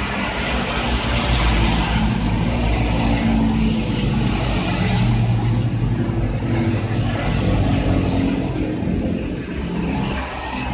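A motor vehicle engine running steadily, its low pitch wavering slightly, easing off a little near the end.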